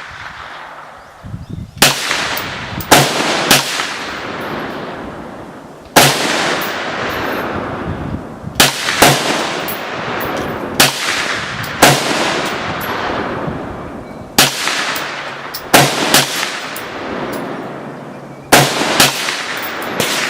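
A series of gunshots, about a dozen sharp reports fired at an uneven pace, some in quick pairs. Each shot echoes out for a second or more: ten rounds fired fast until the magazine runs empty.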